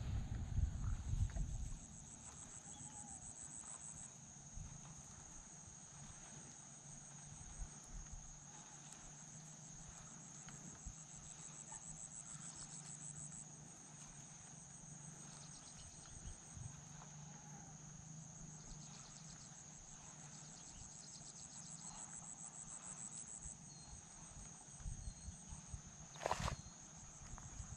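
Insects chirring in a steady high-pitched drone, with a faster pulsing trill above it that comes and goes. A low rumble of wind on the microphone in the first two seconds, and a sharp knock near the end.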